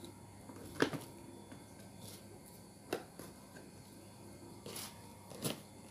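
Hands handling a plastic planter bag while firming soil around a seedling: four short crinkles and rustles of the bag's plastic, the loudest about a second in, with soft pressing of soil between them.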